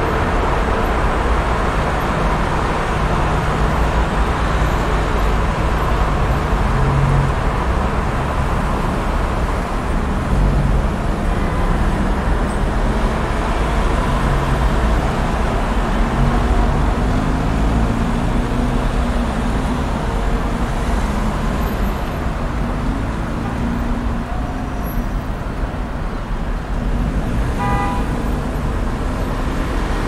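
Road traffic ambience: a steady, continuous wash of passing cars and engines with a heavy low rumble. A short horn toot sounds near the end.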